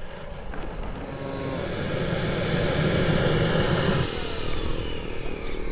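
Small turbine engine of a radio-controlled model jet on a fast low pass, its rushing jet noise swelling to a peak over a couple of seconds under a steady high whine. About four seconds in the whine starts falling steadily in pitch as the turbine spools down.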